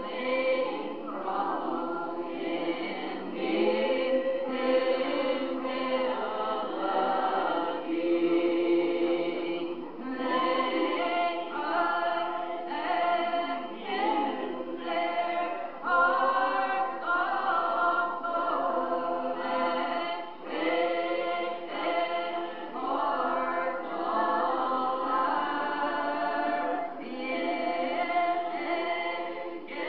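A Primitive Baptist congregation singing a hymn together unaccompanied, slow, with long held notes.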